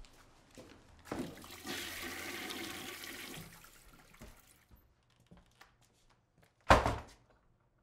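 A toilet flushing: a rush of water that builds quickly, runs for a couple of seconds and fades away. A few seconds later comes a single short, loud bang.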